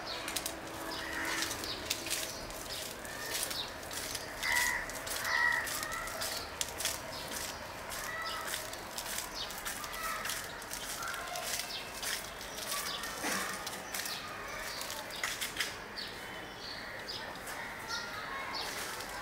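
Birds calling, among them crows cawing a few times, over scattered short clicks.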